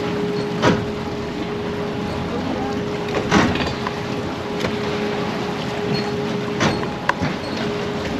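A boat's steady mechanical hum with water splashing against it about five times at uneven intervals.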